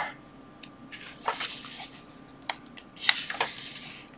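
Paper pages of an old book being turned by hand: two rustles, about a second in and about three seconds in, with a few light ticks of paper between.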